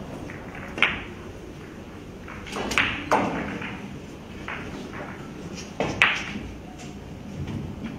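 Pool balls on a billiard table: the cue tip strikes the cue ball with a sharp click about a second in. Around three seconds in come several more ball clicks as an object ball is potted, and another sharp click comes about six seconds in.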